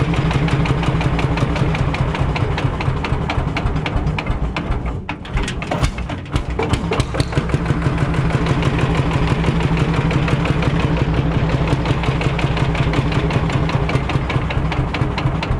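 Ursus C45's single-cylinder two-stroke hot-bulb engine running, a steady rapid pulse of firing strokes. The beat falters and quietens briefly about five seconds in, then picks back up.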